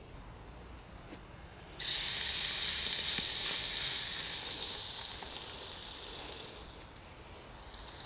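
Stuffed, rolled beef matambre laid on a hot gas grill's grate, sizzling as the meat hits the metal. The sizzle starts suddenly about two seconds in and slowly dies down over the next five seconds.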